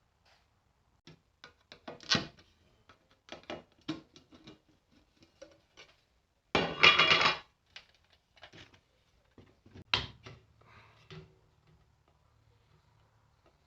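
Small metal carburetor parts and tools clinking and knocking on a workbench as they are handled, with a denser rattle lasting about a second midway and a sharp knock near the end.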